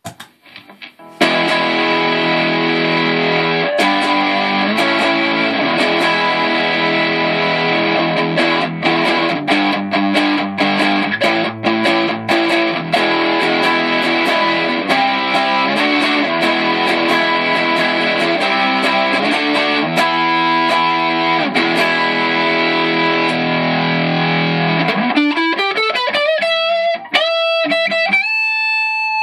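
Distorted electric guitar, a Gibson '59 Les Paul Reissue played through a Marshall JCM800 4210 50-watt combo amp, playing chords and riffs. Near the end a note slides up into long held single notes.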